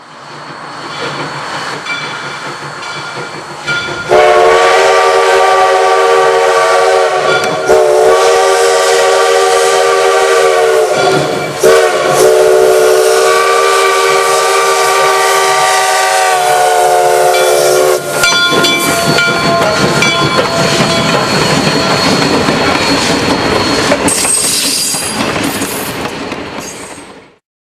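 Steam whistle of 1883 Rogers-built steam locomotive No. 136 sounding, about four seconds in, one long blast broken twice by brief gaps and held for some fourteen seconds, over the running noise of the train. After the whistle stops the train's noisy running continues.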